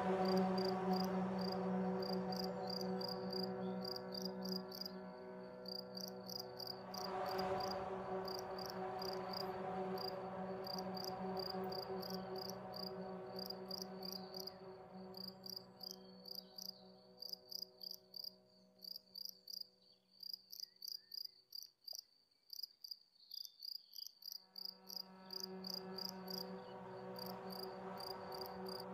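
Crickets chirping in a steady, even rhythm over a soft held musical drone of several sustained notes. The drone fades away about halfway through and swells back in near the end.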